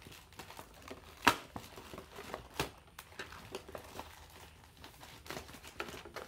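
Plastic packaging and cardboard crinkling and rustling as packages glued inside a kit box are pulled loose, with a sharp crack about a second in and a few lighter clicks and snaps.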